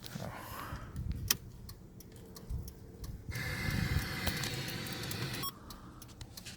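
Turn-signal flasher relay of a 1991 Toyota 4Runner clicking as the signals are tested with the new relay in. A steady higher-pitched noise runs for about two seconds in the middle and cuts off suddenly.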